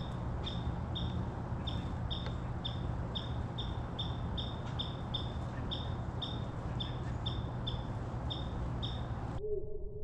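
A small bird repeating a short, high, slightly down-slurred call note about twice a second, over a steady outdoor background rush. The calling cuts off suddenly near the end.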